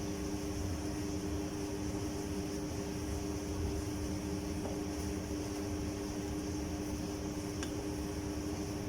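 Steady mechanical hum, like a kitchen exhaust fan, over a low, flickering rumble from a pot of water boiling with asparagus blanching in it.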